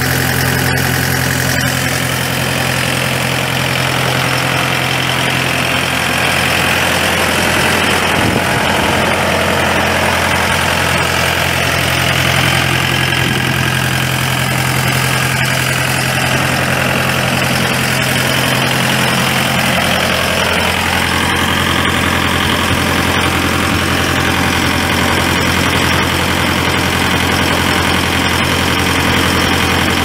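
John Deere four-cylinder turbo diesel engine of a Husqvarna FS6600 concrete saw idling steadily.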